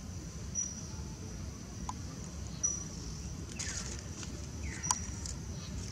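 Outdoor ambience: a steady low rumble with a few brief high chirps, two short falling calls around the middle, and a few light clicks.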